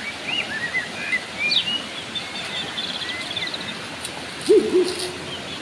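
Small birds chirping and trilling over the steady rush of a shallow river, with a louder low hooting call of a few notes from another bird about four and a half seconds in.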